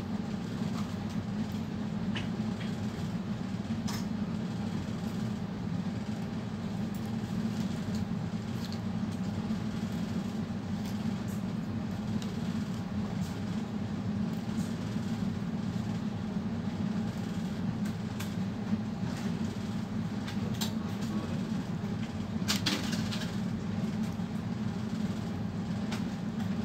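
A steady low hum of running machinery, with a few faint clicks and taps as fingers handle the taped circuit board, the clearest a little over 20 seconds in.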